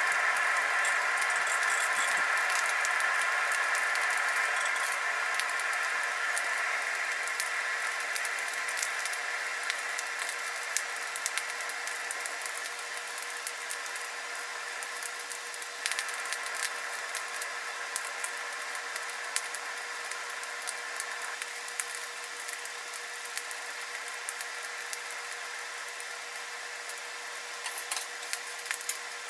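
Steady whir of a coal forge's air blower with a constant hum, easing off slowly, feeding a freshly lit, heavily smoking fire. Scattered crackles and pops from the burning coal, and a few clinks near the end as a poker stirs the coals.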